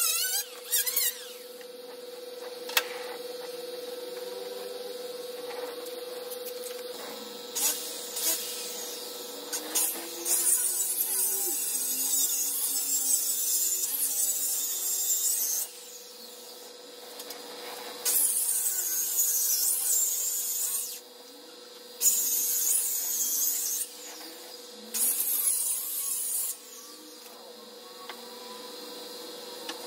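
Compressed-air spray gun hissing in bursts as it sprays clear coat onto wooden boards, with a steady hum underneath. There are four bursts in the second half; the first is the longest, about five seconds.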